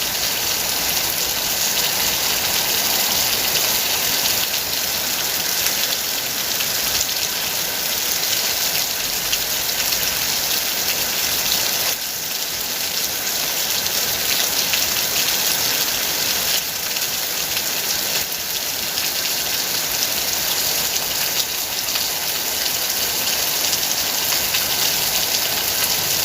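Steady heavy rain: a dense, even hiss of many drops on a surface.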